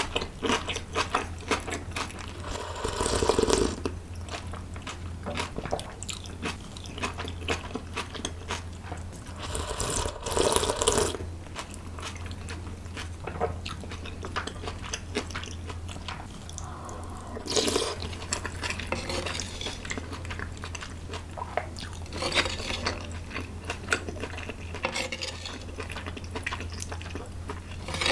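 Close-miked eating: chewing and biting with wet mouth clicks, and a few louder bursts of eating noise about 3, 10, 17 and 22 seconds in. A steady low hum runs underneath.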